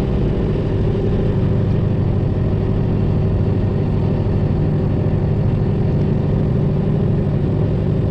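Detroit Diesel 12.7-litre engine of a Freightliner Classic XL semi truck, running steadily with no marked revving.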